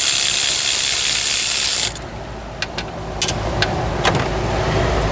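Pneumatic air ratchet running with a steady airy hiss and then cutting off about two seconds in. Several separate sharp clicks of tools on metal follow.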